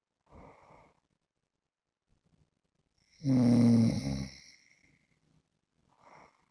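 A man snoring in his sleep: one loud, rattling snore about three seconds in, with soft breaths before and after it.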